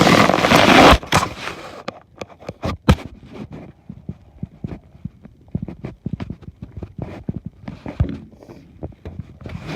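K'NEX plastic pieces being handled and taken apart: a loud plastic rustle for about the first second, then a run of irregular small clicks and knocks.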